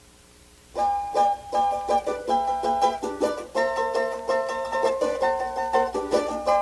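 Faint hiss of the gap between record tracks, then about three-quarters of a second in a samba song's instrumental intro starts: a bright plucked string instrument strumming chords in a quick, choppy rhythm.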